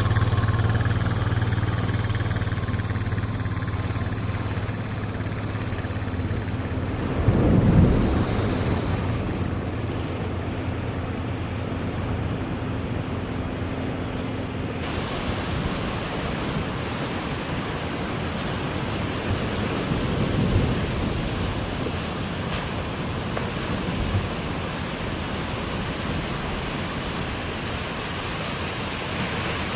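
Ocean surf rushing, with wind buffeting the microphone and a louder wave surge about eight seconds in. A steady low motor hum fades out during the first half.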